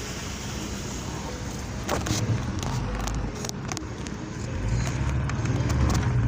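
Vehicle driving on a road: engine and road noise with a low rumble that swells about two seconds in and grows louder again past the halfway point, with a few short knocks.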